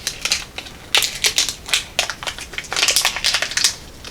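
A plastic candy wrapper being cut open with scissors and handled: irregular sharp snips and crinkles, in two busy runs about one and three seconds in.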